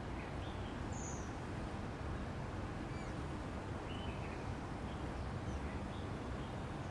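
Steady low background rumble outdoors, with faint, short high chirps of small birds scattered through it.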